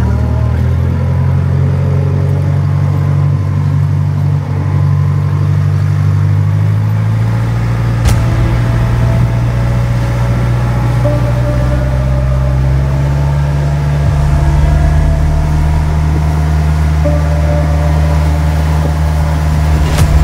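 Tour boat's engine running steadily at cruising speed, a loud low drone heard from on board, with two sharp knocks, one about a third of the way in and one near the end.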